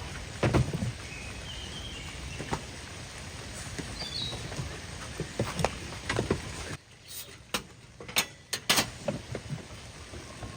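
Light rain pattering steadily, with scattered knocks and sharp clicks of gear being handled during a wet camp teardown. The loudest knock comes about half a second in. The rain noise drops away suddenly about seven seconds in, followed by a quick string of sharp clicks.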